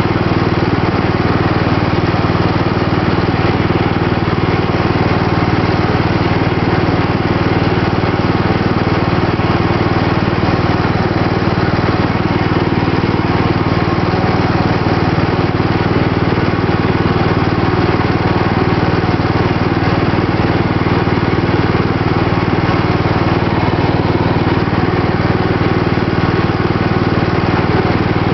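Riding lawn mower engine running steadily at an even speed as the mower is driven along, heard close up from the driver's seat.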